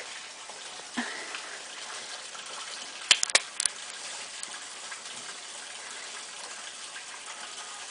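A steady, even watery hiss, with a few sharp wet slaps about three seconds in as a golden retriever paws and splashes in a muddy puddle.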